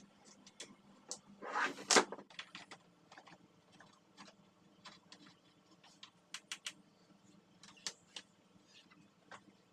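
Hands handling objects: a short scraping rush that ends in a sharp knock about two seconds in, then scattered light clicks and taps.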